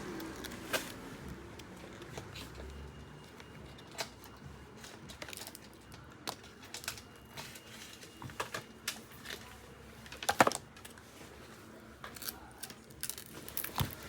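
Small hand tools and the phone clicking and tapping against each other and the work bench during a phone back-glass removal: scattered light taps, with one louder clatter about ten seconds in.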